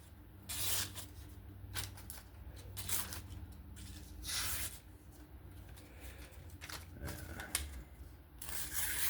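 Knife blade being stroked along a strop to hone its edge: a series of swishing strokes at an uneven pace, about one a second, a couple of them drawn out longer.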